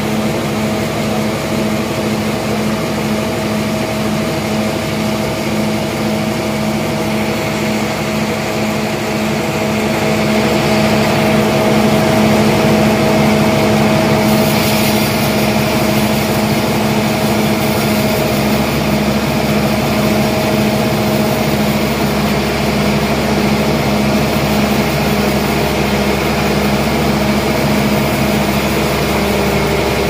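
Band sawmill running with a steady mechanical hum, growing louder about ten seconds in, with more hiss added a few seconds later, as a trembesi log on its carriage is sawn into slabs.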